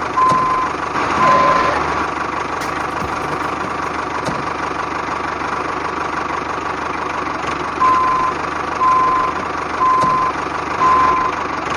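Model tractor reversing: a steady engine-like running noise with reversing beeps, two short beeps right at the start, then about one a second over the last four seconds.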